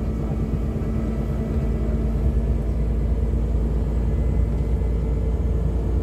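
Steady running noise of a Temsa Safari HD coach under way, heard from inside the passenger cabin: a low engine drone and road rumble.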